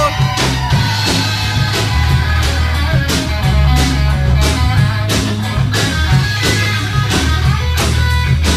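Live band playing a guitar solo: an electric guitar picking quick single notes over bass and drums.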